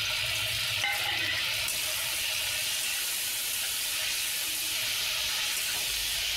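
Chopped tomato and onion sizzling steadily in hot ghee in a kadhai while being stirred with a steel spatula, with one light knock about a second in.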